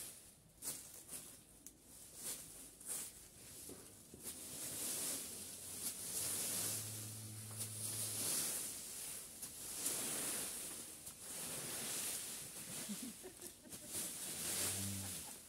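Rake dragging through dry fallen leaves on bare earth, a rustling scrape repeated stroke after stroke. A low hum comes in briefly about halfway through and again near the end.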